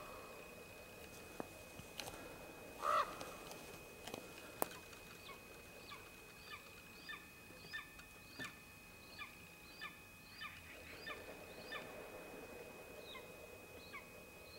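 Ravens calling at a wolf's carcass: a loud croak at the start and another about three seconds in, then a long run of short, falling calls, about one or two a second.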